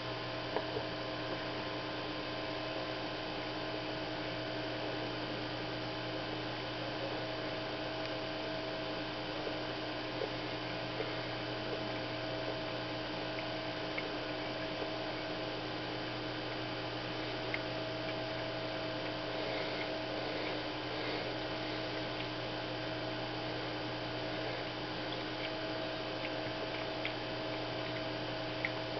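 Steady electrical hum, with a few faint clicks scattered through it.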